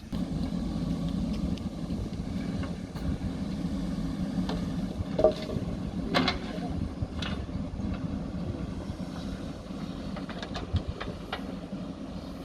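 JCB 3DX backhoe loader's diesel engine running steadily under work, with several short sharp knocks and clanks in the middle of the run.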